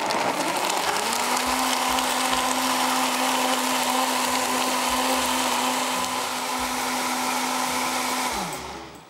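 Sencor blender running on its smoothie setting, blending a thick banana, date and nut mixture. The motor comes up to speed about a second in, runs steadily, then winds down and stops near the end.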